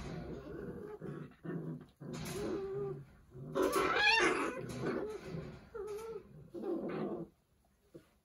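Young Doberman puppies, 41 days old, whining and crying, several wavering cries overlapping, with one louder, higher cry about four seconds in; the cries stop about seven seconds in.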